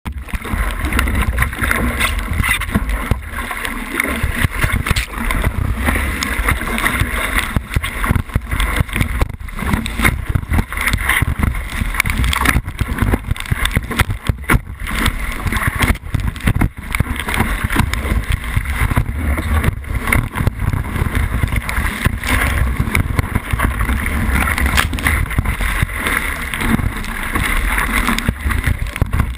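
Kiteboard planing over choppy waves, heard from a camera mounted on the board: continuous rushing and slapping of water against the board, over a heavy low wind rumble on the microphone.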